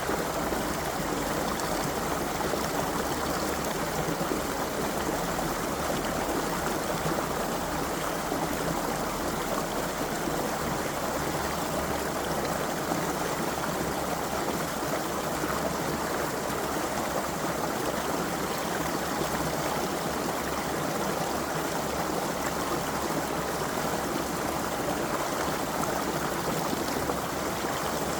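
Creek water running steadily over stones, an even rush and babble that does not change.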